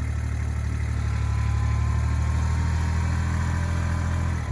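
A vehicle engine running steadily with a deep hum; it works a little harder about two and a half seconds in, then its note drops suddenly just before the end.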